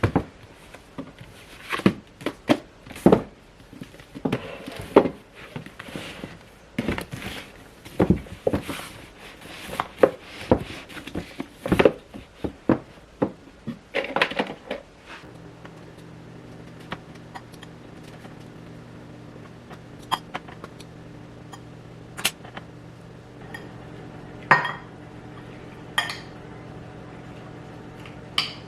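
Hard objects clattering and clinking in quick, irregular knocks for about the first half. After that a steady low hum sets in, with a few separate clinks.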